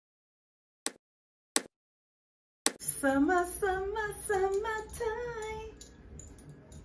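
Near silence with two short clicks, then about two and a half seconds in a woman starts singing a short tune of quick notes, ending on a longer held note and fading near the end.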